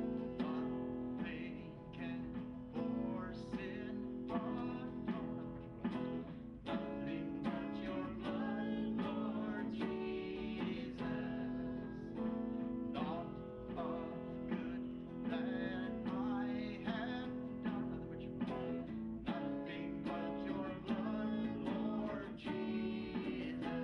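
Live guitar music: strummed chords and plucked notes on electric and acoustic guitar over steady sustained notes.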